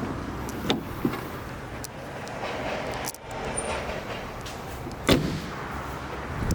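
Steady car running noise, with a few sharp knocks; the loudest knock comes about five seconds in.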